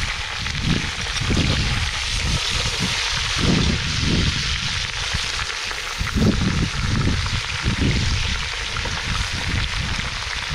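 Pieces of young goat meat sizzling as they fry in oil in a metal pot, a steady hiss. Irregular low rumbling runs underneath.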